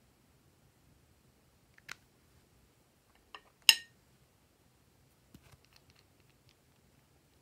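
Sharp plastic clicks as a round plastic makeup container is handled and pulled open, with one loud snap a little before the middle and a few lighter ticks afterwards.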